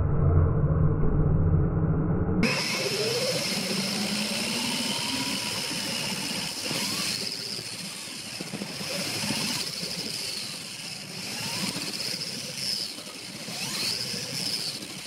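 Small electric RC midget cars running laps: motor and gear whine that rises and falls in pitch as the cars speed up and slow down around the oval. About two seconds in the sound cuts to a brighter, closer whine.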